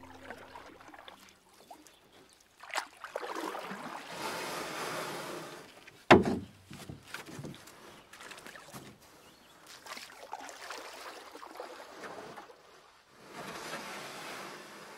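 Water splashing and sloshing around a kayak on a river, coming in several swells, with one sharp knock about six seconds in.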